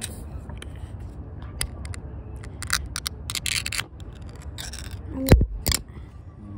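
Full-open pull-ring lid of an aluminium can being levered up and peeled back: a series of metallic clicks and scraping tears, ending in a loud knock about five seconds in as the lid comes free of the rim.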